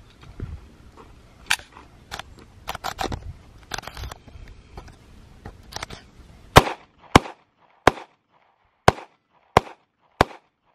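Semi-automatic handgun fired six times in steady succession, starting about two-thirds of the way in, with the shots well under a second apart. Before the shots there is only low rumble and a few faint clicks.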